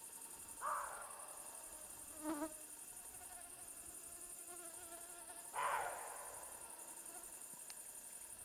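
Mosquito whining near the microphone: a faint, thin, steady hum with overtones that fades in and out, briefly about two seconds in and then for several seconds in the middle. Two brief soft rustles, about a second in and just past halfway, are the loudest sounds.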